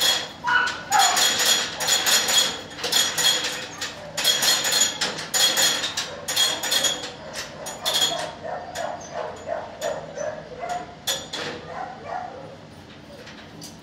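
Dogs barking in a shelter kennel block: fast, repeated barks, about two or three a second, thinning out after about eight seconds and growing quieter near the end.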